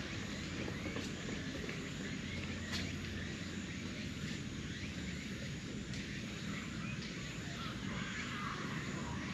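Steady outdoor background noise with a low hum, and a few faint bird chirps later on.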